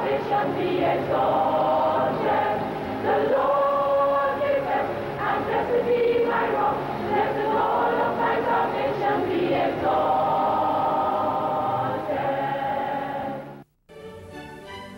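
A choir singing, cut off abruptly near the end, after which a quieter piece of instrumental music with bowed strings begins.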